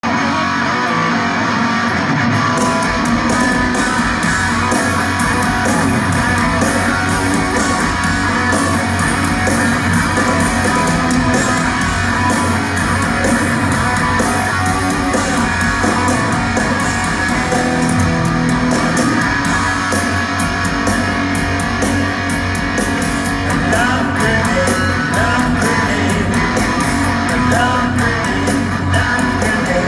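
Rock band playing live at full volume: electric guitar over bass guitar and drums.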